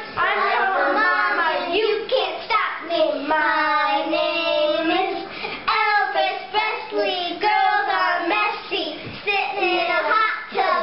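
Two boys singing loudly together, with one long held note about four seconds in.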